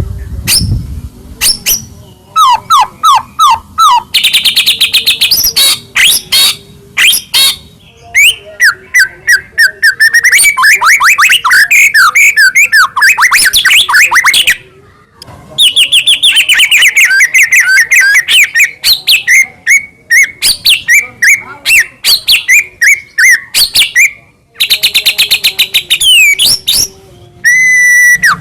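White-rumped shama (murai batu) singing a loud, fast, varied song packed with mimicked phrases: rapid trills, chattering runs of notes and quick rising and falling whistles, with brief pauses between phrases.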